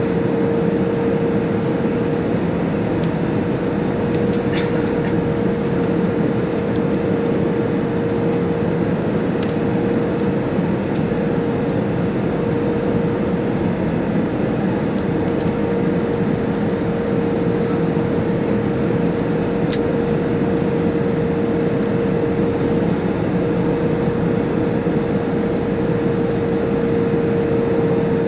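Steady cabin noise inside an Airbus A320-214 in flight: an even rush of airflow and engine noise from its CFM56-5B engines, with one steady humming tone held above it.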